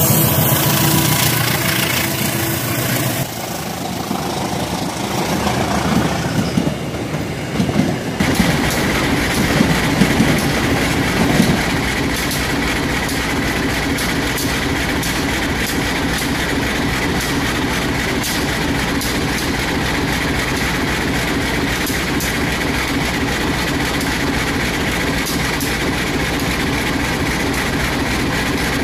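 Miniature model passenger train running along its track. The sound is uneven for the first several seconds, then settles into a steady running hum with a faint regular ticking.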